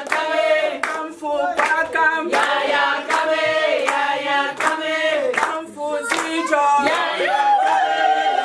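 A group of women singing together, clapping their hands in a steady beat of about two claps a second.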